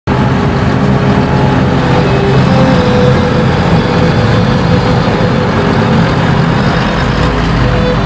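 Farm tractor engine running steadily, a continuous heavy mechanical drone.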